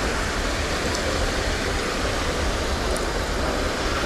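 A steady rushing noise with an irregular low rumble, typical of wind buffeting the microphone.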